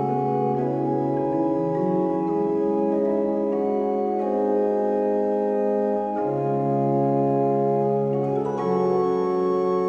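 Organ music: slow, held chords over a sustained bass note, changing every second or two.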